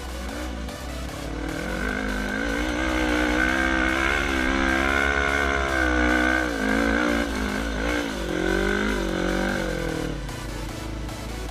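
Sport quad's engine revving under load while it climbs a sand dune, its pitch rising and falling repeatedly with the throttle, loudest through the middle.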